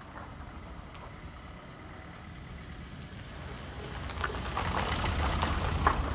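A car driving past close by: a low engine and tyre rumble that builds over the last few seconds to its loudest near the end, with a scatter of small clicks as it passes.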